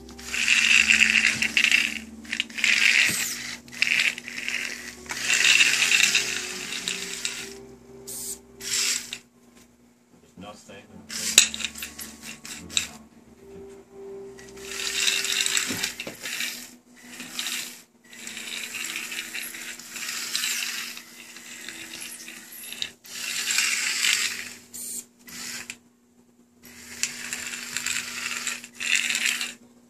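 Small hobby robot car's plastic gearmotors whirring in repeated bursts of a second or two, with short pauses between, as it drives and turns; a steady low hum runs underneath.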